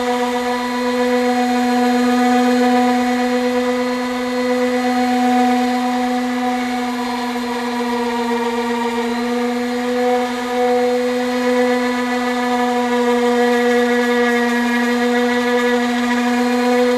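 Power sander running steadily at a constant high whine, its pitch sagging briefly about eight seconds in as it is pressed harder into the panel.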